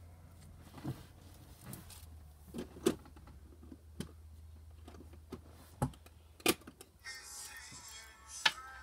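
Slime being kneaded and squeezed in the hands, giving scattered small pops and clicks. Background music comes in about seven seconds in.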